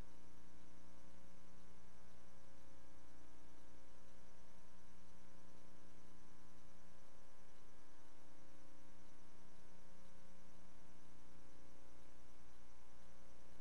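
Steady electrical hum with a faint hiss, unchanging throughout.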